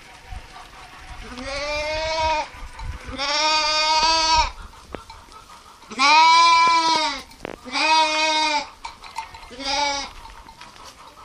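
Sheep bleating: five drawn-out calls one after another, the loudest about six seconds in and a short one near the end.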